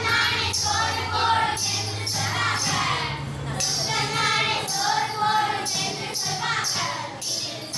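Children singing a villupattu (Tamil bow song) in chorus, over the steady rhythmic jingling of the bells on the musical bow as it is struck.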